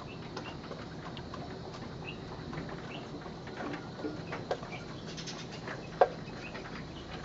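Light clicks and rattles of a wire-mesh cage as a tokay gecko climbs it, with one sharp knock about six seconds in as it reaches the wooden hide box. Faint high chirps sound in the background.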